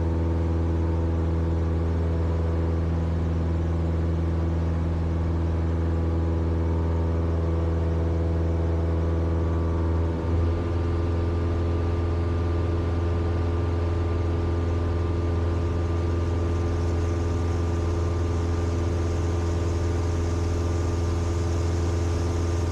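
Cessna 172's piston engine and propeller running steadily in flight, a constant low drone with a brief dip about ten seconds in.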